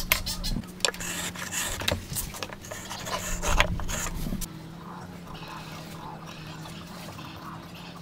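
Timber blocks handled on a workbench: knocks and rough rubbing of wood on wood for the first half, then quieter scratching of a ballpoint pen drawing layout lines on the wood. A steady low hum runs underneath.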